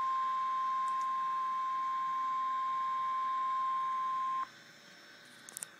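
Emergency Alert System attention tone, a single steady high tone, cuts off suddenly about four and a half seconds in. It signals the start of a severe thunderstorm warning.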